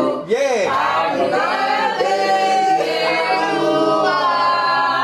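A group of people singing together loudly, many voices at once.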